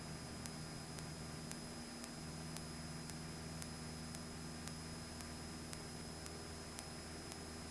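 Cessna 172's engine at takeoff power, heard only as a faint, steady low drone under a steady hiss. A faint tick recurs about twice a second.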